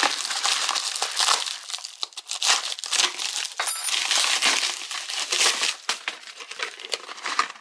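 Irregular crinkling and rustling of something being handled close up, with scattered light clicks and clinks.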